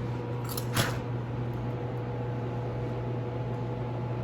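Steady low room hum, with one short light click about a second in.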